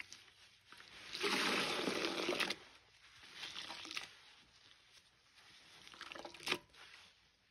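A sponge soaked with Lime Ajax suds squeezed and wrung by gloved hands in a metal bowl: wet squelching and sloshing of the lather. One long squeeze about a second in is loudest, followed by a few shorter squishes and one sharp squelch near the end.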